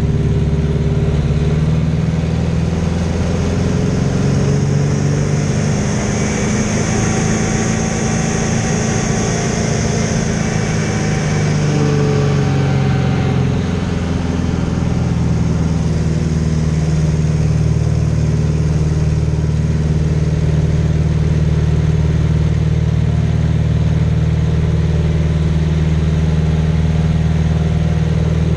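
Aerobatic biplane's piston engine and propeller running loud and steady, with rushing wind heard from the open cockpit. A higher airflow hiss swells between about six and thirteen seconds in, and the engine note shifts during it.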